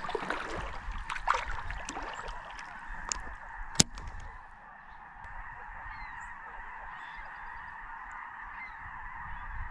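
A steady chorus of bird calls. A single sharp click comes about four seconds in.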